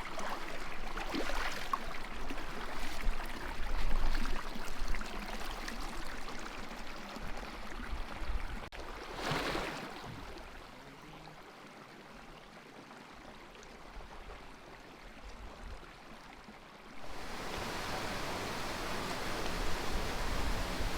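Water running and trickling over rocks in a spring-fed creek, a steady rushing sound. It drops to a faint hiss about ten seconds in, then returns abruptly a few seconds before the end.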